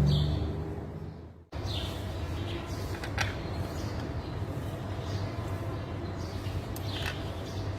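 A steady low machine hum with a few short, high chirps. The sound fades out and drops away for a moment about a second and a half in, then the hum comes back.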